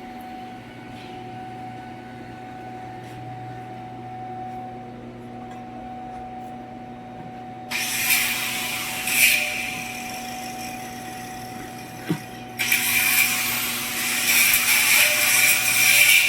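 Arc welder humming steadily, then from about eight seconds in the loud crackle and hiss of a stick-welding arc. The arc breaks off for a moment just after twelve seconds and is struck again.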